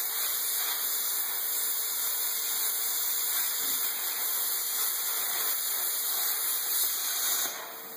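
Thermal Dynamics plasma cutter cutting through metal plate: a steady, loud hiss of the arc and air jet, with a faint steady hum underneath. The hiss drops off near the end as the cut finishes.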